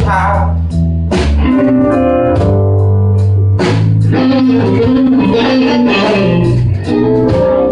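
Live blues band playing: electric guitar lead lines over bass guitar and drums, with no singing.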